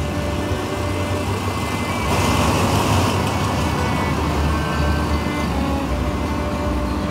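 Diesel locomotive passing close by, hauling a train of passenger carriages: engine running and wheels rolling on the track, loudest about two to three seconds in, then the carriages rolling steadily past.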